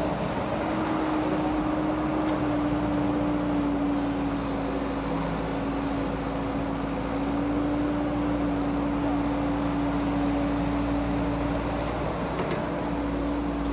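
Caterpillar E120B tracked excavator's diesel engine running at a steady pitch while the machine digs and swings its arm.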